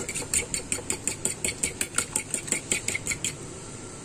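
A fork beating an egg in a bowl, its tines clicking against the bowl in a quick, even rhythm of about six strokes a second, stopping a little after three seconds in.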